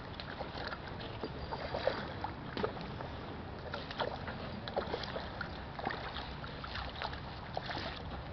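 A hooked rainbow trout thrashing at the surface in shallow water, making a run of irregular small splashes and sloshes.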